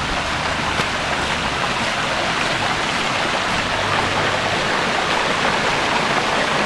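Steady rushing of rainwater runoff flowing over a rocky road, growing slightly louder.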